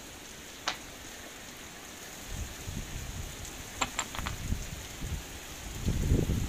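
Heavy rain falling steadily in a hiss, with a few sharp ticks about a second in and again near four seconds. From about two seconds in, gusts of wind buffet the microphone, heaviest near the end.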